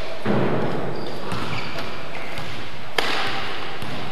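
A badminton racket strikes a shuttlecock with one sharp crack about three seconds in. It rings out in the large, echoing sports hall over a steady background of play noise.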